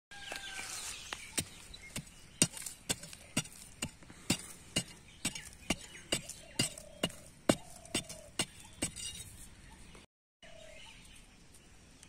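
A wooden stick jabbing and scraping into hard, dry soil to dig a small hole, in a steady rhythm of about two sharp strikes a second that stops near the end.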